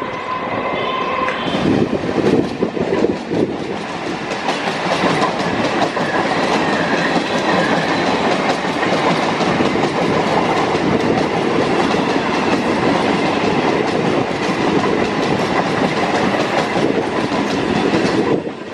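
Electric multiple unit (EMU) suburban train passing close by, a continuous rumble and clatter of its wheels over the rail joints. A steady high tone fades out about a second in, and the noise drops off sharply near the end.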